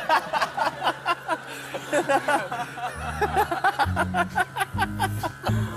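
Chuckling, snickering laughter, with background music whose bass line comes in about three seconds in.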